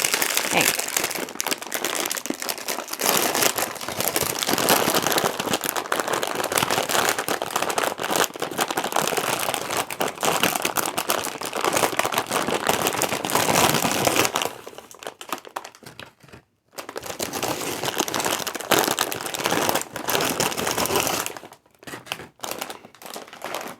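Packaging crinkling and rustling as it is handled and opened, steadily for about fourteen seconds, then on and off with short pauses.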